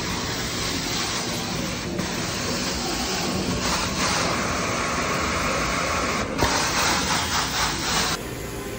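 Carpet-cleaning extraction wand spraying hot water into carpet and vacuuming it back up: a steady, loud rushing hiss that shifts in strength every second or two as the wand is worked. It drops away about eight seconds in.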